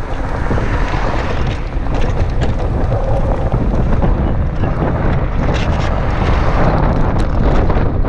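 Wind buffeting the microphone of a camera riding on a moving CityCoco electric scooter: a steady, loud, low rumble with scattered small clicks and rattles.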